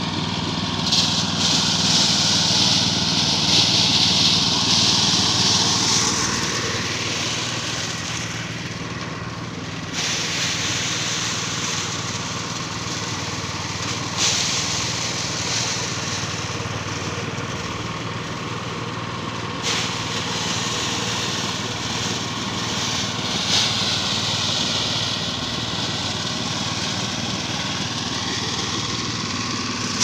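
A small engine runs steadily, driving a belt-driven rice thresher. Over it a rushing hiss from the threshing drum swells and fades as bundles of rice stalks are fed in.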